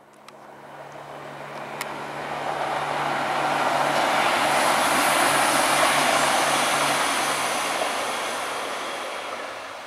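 Diesel railbus passing by on the line, its running noise with a steady engine hum swelling to a peak about halfway through and then fading away.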